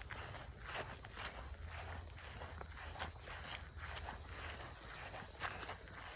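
Footsteps crunching on a trail at a walking pace, a step roughly every half second, over a steady chorus of crickets.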